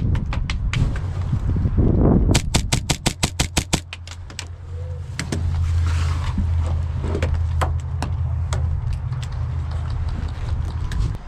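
Airsoft guns firing: a fast string of about a dozen shots around two seconds in, and scattered single shots throughout, over a steady low rumble.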